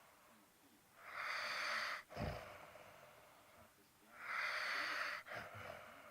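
Snoring: two long, noisy breaths about three seconds apart, with a short snort just after the first.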